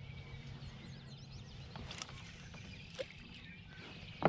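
Outdoor lake ambience: small birds chirping faintly over a steady low rumble, with a few light knocks, the loudest near the end.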